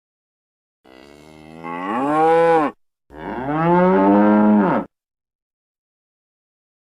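A cow mooing twice, starting about a second in. The first moo begins faint and rises in pitch and loudness; after a short break, the second rises and then falls in pitch.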